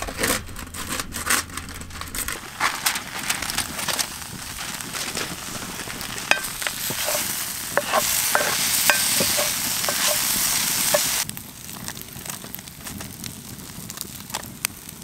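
Potatoes, mushrooms and Brussels sprouts sizzling in a cast-iron skillet over a wood fire while a wooden spatula stirs them, knocking and scraping against the pan. The sizzling is loudest for about three seconds past the middle, then drops away suddenly, leaving the fire crackling.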